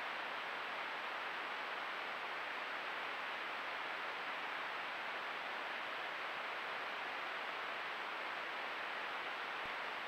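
Steady, even hiss with no distinct events, as picked up by a trail camera's microphone, with a faint thin high-pitched whine running above it.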